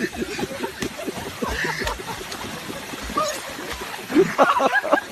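Onlookers' voices and laughter, with water splashing as a man wades beside a swan.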